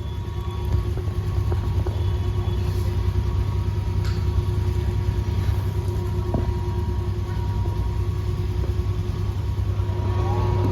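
Heat pump equipment running: a steady low mechanical hum with a faint constant whine over it.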